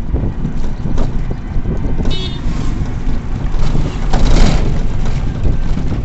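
Road rumble and wind buffeting the microphone in the open cab of a moving electric rickshaw (toto), with rattling of the vehicle body. There is a brief high squeak about two seconds in and a louder surge about four seconds in.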